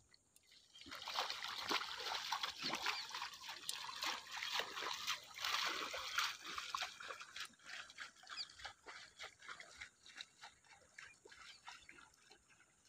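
Muddy water splashing and sloshing as a man wades through a flooded paddy field, levelling the puddled soil by hand with a wooden leveling board (parambu). The splashing is densest for the first few seconds, then thins to scattered, fainter splashes.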